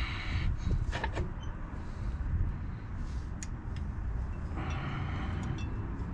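Faint metal clicks of a drum brake hold-down spring and its retainer being worked onto the pin at the backing plate, over a steady low rumble, with a short hiss near the end.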